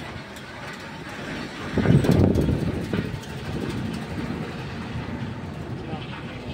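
Ashok Leyland tipper truck running while its tipping body rises and the load of red soil slides out. A loud, deep rush starts about two seconds in, lasts about a second, then eases back to a steady lower rumble.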